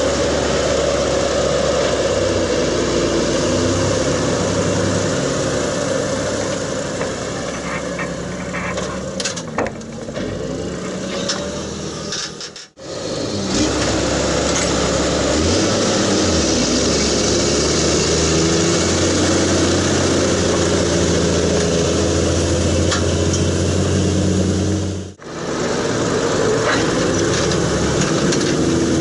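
New Holland 8670 tractor's six-cylinder diesel engine running steadily under load, its pitch shifting a little, with two sudden brief breaks in the sound.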